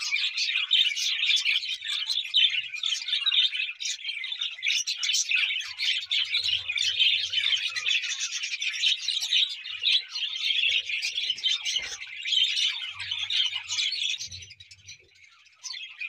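A flock of budgerigars chattering and chirping in a dense, continuous stream of short high calls; the chatter dies away near the end.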